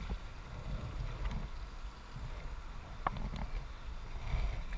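Kayak out on a river: faint water noise with a low, uneven rumble of wind on the microphone, and one sharp knock about three seconds in.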